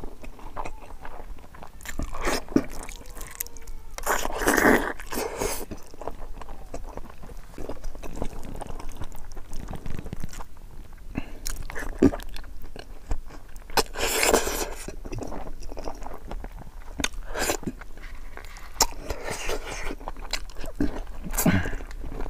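Close-miked mouth sounds of a man eating braised pig's trotters and rice by hand: wet chewing with scattered clicks and smacks. There are louder, noisier mouthfuls about four and fourteen seconds in.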